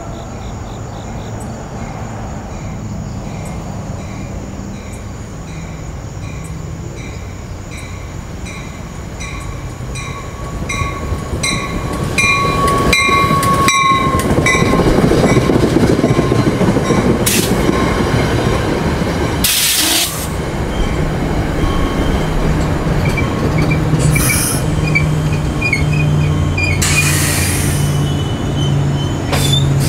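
New Jersey Transit commuter train pulling into the station and slowing to a stop. A ding repeats a little over once a second at first. Then the coaches rumble past with wheel squeal and sharp clunks, the loudest about two-thirds of the way in. Squeals come and go as the train brakes, and a low, pulsing throb from the locomotive builds toward the end.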